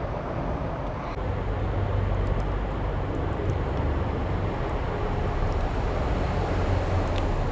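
Steady low rumbling background noise, a little louder from about a second in, with a faint click near the end.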